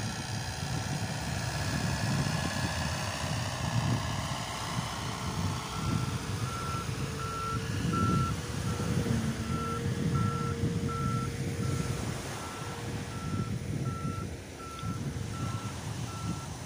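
A vehicle's reversing alarm beeping evenly, about three beeps every two seconds, starting about six seconds in, over a steady low rush of surf and wind.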